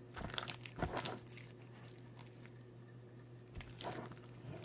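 Soft, sticky squishing and crackling of slime being worked by hand, in two short bouts near the start and near the end.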